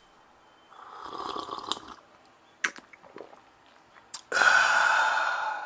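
A man slurps a sip of hot coffee from a mug, with a few small mouth clicks as he swallows. This is followed, about four seconds in, by a long breathy exhale of satisfaction, the loudest sound here, that fades out.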